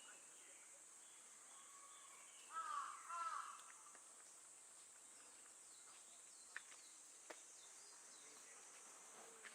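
A crow cawing several times in quick succession about two and a half seconds in, over a steady high-pitched insect drone, likely cicadas; two faint clicks follow later.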